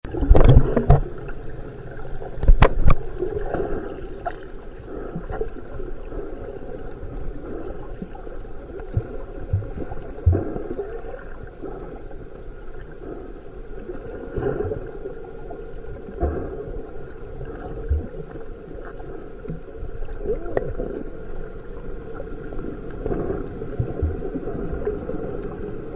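Underwater sound from a camera held below the surface: a steady muffled wash of water with scattered low bumps, and two sharp knocks in the first three seconds.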